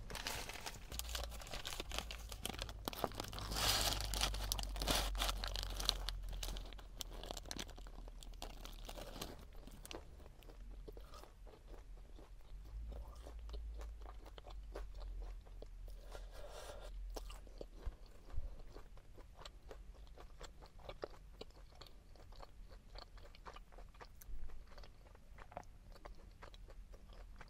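Paper wrapper rustling as a deep-fried sandwich is unwrapped, then close-up biting and chewing of its crisp fried bun, with many small crunches.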